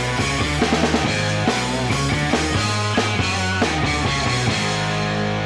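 Rock music with a drum beat over guitar-like notes. About four and a half seconds in, the drums stop and a held chord rings on.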